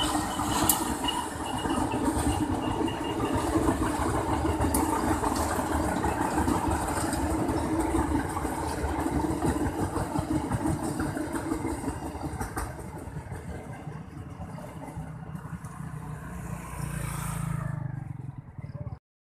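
Diesel-electric locomotive hauling passenger coaches past at close range: the engine runs and the wheels clatter on the rails. It fades as the last coaches go by and cuts off suddenly near the end.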